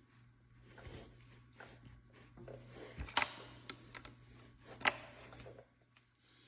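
Irregular clicks and clinks of a hand wrench working on metal parts of a dirt bike's front end, with two sharp, louder clanks about three and five seconds in.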